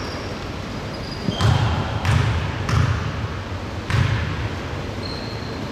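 Basketball dribbled on a gym floor: four bounces about two-thirds of a second apart, the last after a short pause. A brief high squeak comes near the end.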